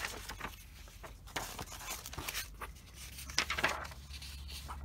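Coloring-book pages being flipped and a loose printed sheet handled: several dry paper rustles, the loudest a little past three seconds in.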